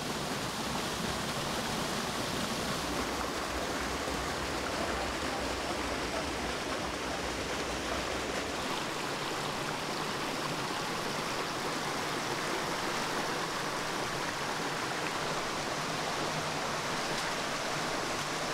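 Steady rush of a canyon stream's water flowing over rocks into a pool. A low rumble under it drops away about eight seconds in.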